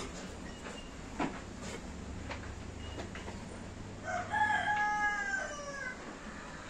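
A rooster crowing once, a single call of about two seconds starting around four seconds in, preceded by a few faint knocks.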